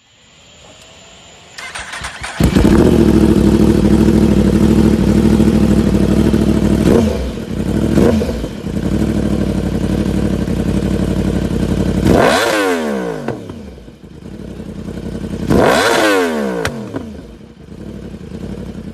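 Yamaha YZF-R1 crossplane inline-four through an SC-Project CR-T exhaust, starting up about two seconds in and settling into a loud idle. It gives a short blip of the throttle, then two hard revs near the end, each climbing quickly and falling back to idle.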